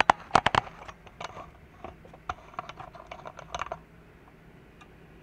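A quick cluster of sharp clicks and knocks in the first half second, then scattered lighter clicks until about four seconds in.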